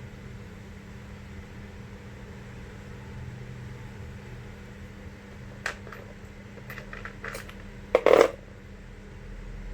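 A few light clicks, then a louder double knock near the end, over a steady background hum: small hard objects being handled and set down.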